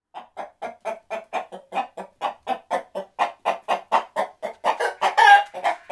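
Hen clucking in a fast, even run of about four clucks a second. It grows louder and breaks into one loud squawk about five seconds in.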